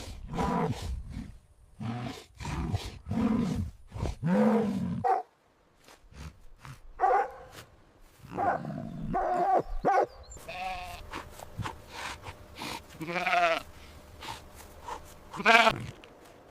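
A series of recorded farm-animal calls, one after another, mostly bleating, with a wavering bleat about two-thirds of the way through and a loud call near the end.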